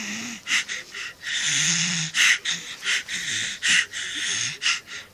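Seven-month-old baby making breathy, raspy zombie noises: a run of short huffs, with a longer low growl about a second and a half in.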